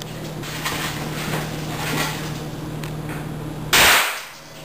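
A small home-made explosive charge goes off with a single sharp bang near the end, after a few seconds of low, steady background noise with a faint hum.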